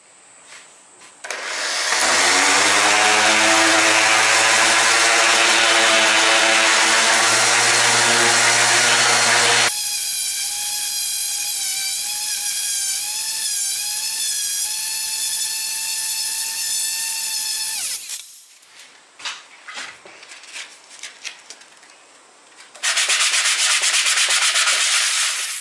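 Electric orbital sander starting up and running, then a higher wavering whine as its pad works the wooden knife block, sanding the wood-filler patches flush. After a few seconds of light knocks and handling, a sanding block rasps back and forth over the wood near the end.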